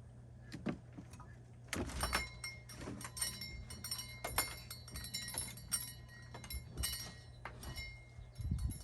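Hand tool scraping and prying at staples in a wooden screen-door frame: a busy run of small metallic clicks and scrapes starting about two seconds in.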